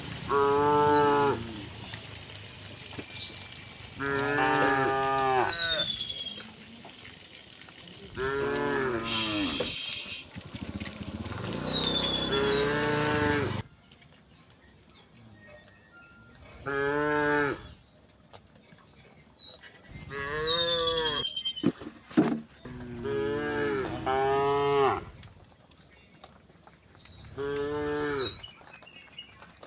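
Cows mooing repeatedly: about eight long calls, each lasting a second or so, a few seconds apart.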